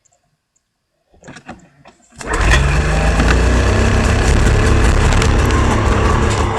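A 1998 Ski-Doo Formula III 700 snowmobile's three-cylinder two-stroke engine starts about two seconds in and then runs steadily and loudly.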